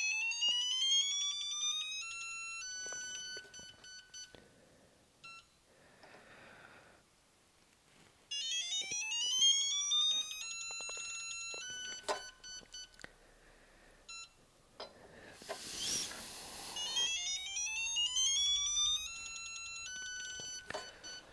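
CDI electronic torque tester's beeper, three times: a tone rising steadily in pitch as torque builds on the beam torque wrench, then a fast run of beeps on one steady pitch as the reading reaches the set target. Between the second and third pulls comes a brief burst of rustling.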